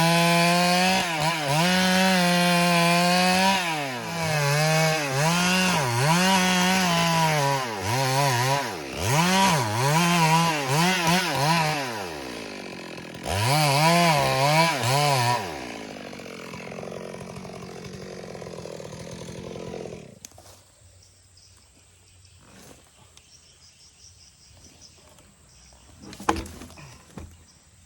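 Stihl MS382 two-stroke chainsaw at full throttle ripping a log lengthwise, its engine pitch dipping and recovering again and again as the chain loads up in the cut. About 15 seconds in the throttle is released and the engine winds down to idle, then it is shut off about 20 seconds in.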